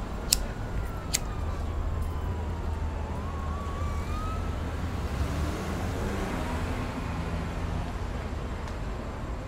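City street background with a steady low traffic rumble and a faint siren wailing, its pitch sliding slowly down and then back up. There are two sharp clicks in the first second or so.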